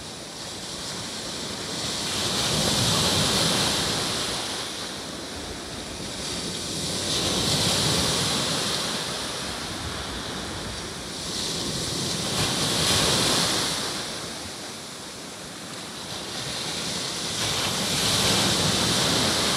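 Baltic Sea surf breaking on the shore: the wash swells and falls back about every five seconds, four waves in all.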